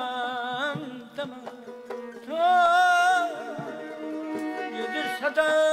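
Azerbaijani mugham singing: a man's voice holds long notes ornamented with fast warbling trills, rising to the loudest held note about halfway through. A steady instrumental note sounds underneath.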